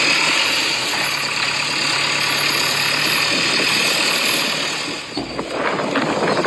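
Yigong radio-controlled toy excavator running steadily as its arm swings and raises the bucket. About five seconds in the running sound drops away and short crackles follow as the bucket digs into gravel.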